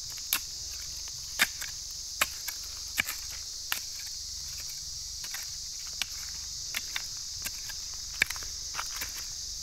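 A short-handled hoe chopping into dry soil: sharp strikes come roughly every three-quarters of a second for the first four seconds, then fewer and fainter. Under them runs a steady, high-pitched drone of insects.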